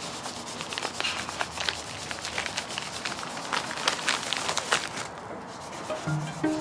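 White tissue paper rustling and crinkling as a scarf is wrapped in it, with many quick crackles. It dies down about five seconds in, and plucked music starts near the end.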